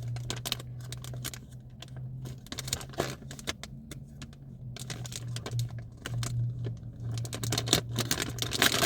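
A plastic candy bag being handled and torn open, crinkling with many irregular sharp crackles, over a steady low hum.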